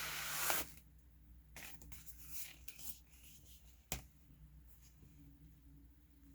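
Paper and cardboard packaging of a vinyl LP being handled: a short sliding hiss at the start, then soft scattered rustles and one sharp tap about four seconds in.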